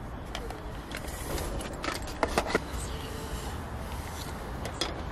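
Camp-kitchen handling: a few short, sharp clicks and knocks as plastic food containers, a cutting board and kitchen scissors are set down and picked up on a folding camp table. A cluster of knocks comes about two seconds in and a couple more near the end, over a steady low background hum.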